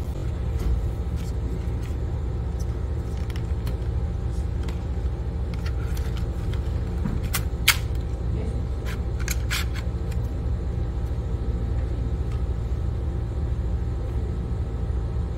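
Scattered sharp plastic clicks and knocks as a foldable toy drone is handled and its slide-in battery pack is pulled from the rear compartment, the loudest clicks coming about halfway through. A steady low rumble runs underneath.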